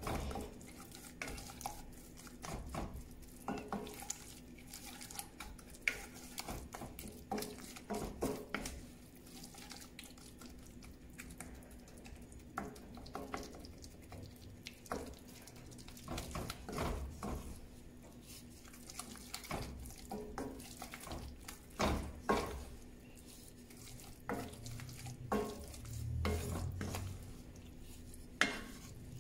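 Wooden spoon stirring and scraping creamed spinach around a cast-iron skillet, with irregular scrapes and light knocks of the spoon against the pan.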